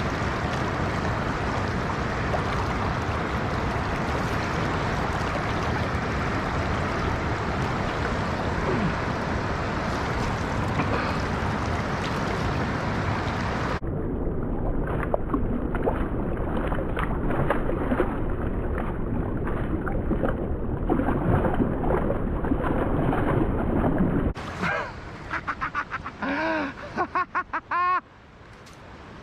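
Steady rush of river water, with wind on the microphone. About halfway through the sound turns abruptly duller, with close splashing and knocks. Near the end it breaks up into short pieces with brief gliding tones.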